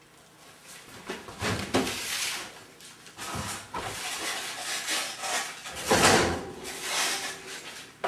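Things being handled and put away: irregular rustling, clattering and a few knocks, the loudest about six seconds in.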